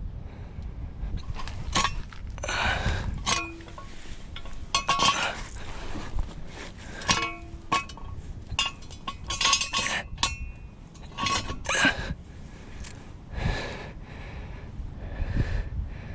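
Metal tools and jacking gear clinking and clanking as they are handled and set in place under a car for a tire change: a dozen or so irregular sharp metallic knocks, some ringing briefly, over low wind rumble on the microphone.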